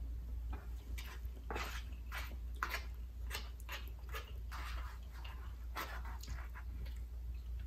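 Close-up chewing and wet lip-smacking of someone eating jerk chicken, with a quick run of smacks through the middle, over a steady low hum.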